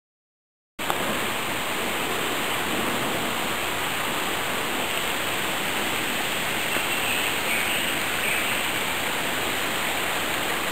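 Water running steadily in a small stream over stones and flood debris on a forest track, runoff still flowing after a flood. It cuts in abruptly about a second in.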